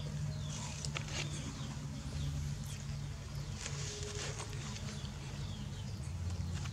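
A young monkey biting and chewing watermelon, with scattered short wet crunches and mouth clicks, over a steady low hum.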